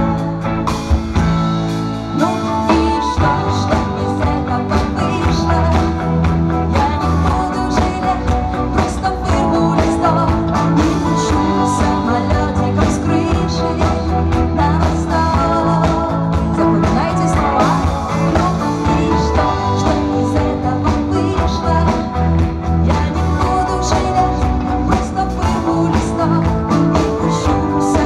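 Live pop-rock band playing a song: drum kit, bass guitar, electric guitar and acoustic guitar, with a steady beat throughout.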